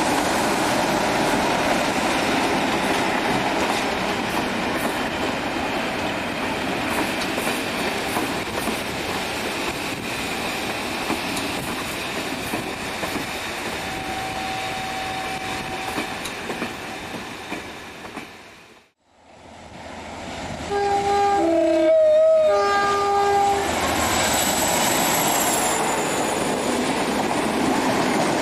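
Class 47 diesel locomotive's V12 engine working as it hauls its coaches away, the train noise and wheel clatter slowly fading. After a short break, a train sounds a two-tone horn, high, low, then high again, and then runs close past at speed with loud wheel and rail noise.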